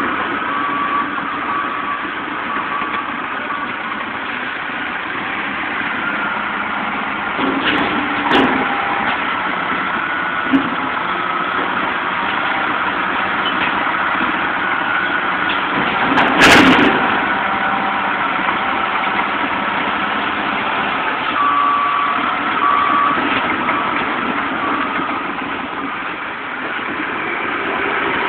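Heavy diesel machinery running steadily: a wheel loader working beside an idling dump truck. A loud clunk comes about halfway through, and a broken high beeping, like a reversing alarm, sounds for a few seconds toward the end.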